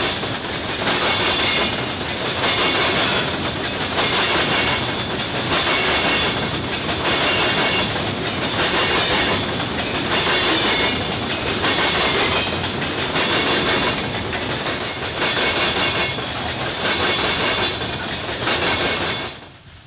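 Freight train of hopper cars rolling past close by: a steady loud rumble of steel wheels on rail, with a clickety-clack over the rail joints about once a second. The sound cuts off abruptly near the end.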